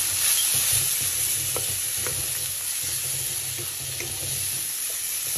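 Raw prawns frying in hot oil in a wok with shallots and garlic, a steady sizzle, stirred with a wooden spatula that gives a few faint clicks against the wok.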